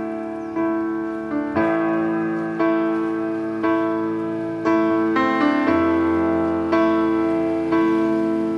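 Background piano music, with notes or chords struck about once a second and ringing on between them.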